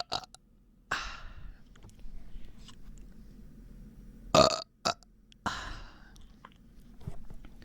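A person burping: one short, loud burp about four and a half seconds in, with airy breaths out about a second in and just after the burp. The burping comes from a bloated, aching stomach, as the uploader describes it.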